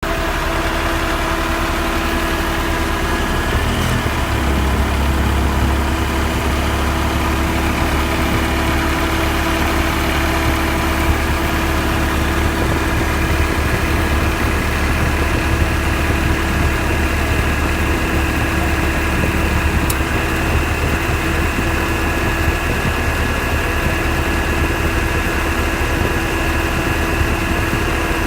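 1991 Honda Civic engine idling steadily with its newly fitted Matsushita AC compressor running, free of the rapid ticking of the failed compressor it replaced. The low hum gets stronger about four seconds in.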